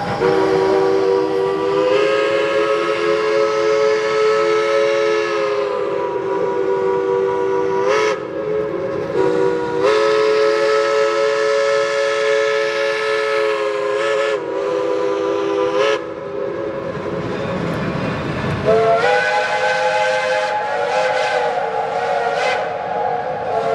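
Steam locomotive chime whistles blowing: a long chord held for several seconds, broken by a brief toot, then another long blast and a short one. After a pause with a low rushing sound, a higher-pitched chord starts near the end.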